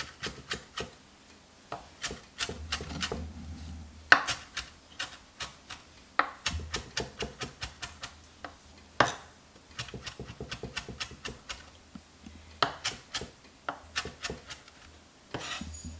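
Kitchen knife chopping fresh herbs on a cutting board: a string of sharp, irregular knocks, quicker in places.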